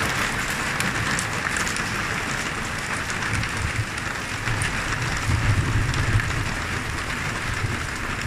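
Heavy rain mixed with hail pattering densely on a corrugated plastic roof overhead, a steady hiss of many small impacts that eases slightly. A low rumble swells about halfway through.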